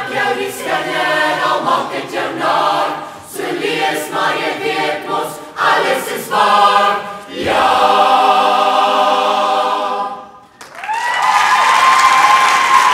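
Mixed student choir singing in rhythmic phrases that build to a long held final chord. The chord cuts off about ten seconds in, and the audience breaks into loud cheering and applause.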